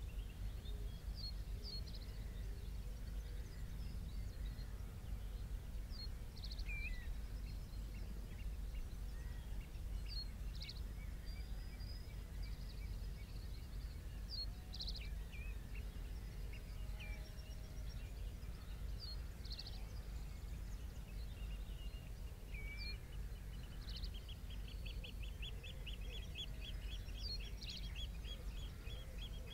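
Estuary salt-marsh ambience: a low steady rumble with birds calling over it. Short high calls come every few seconds, and near the end a rapid trill of quickly repeated notes sets in.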